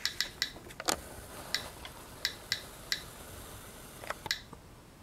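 GQ GMC-300E Plus Geiger–Müller counter clicking at irregular intervals, about two clicks a second. Each click is a detected radiation event, and the rate is raised well above background by the 2% thoriated tungsten welding electrodes beneath it.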